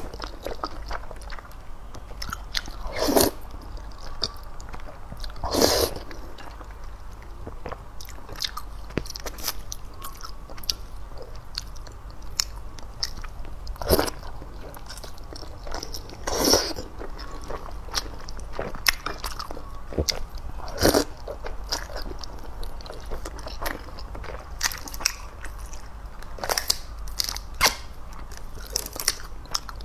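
Close-miked eating of youmian kaolaolao, soft honeycomb oat-flour rolls in spicy soup: steady wet chewing broken every few seconds by short, loud slurps as clumps of the rolls are sucked in.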